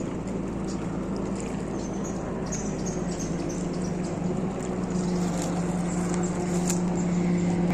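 A motorboat's engine running steadily with a low, even hum, growing gradually louder as it comes closer.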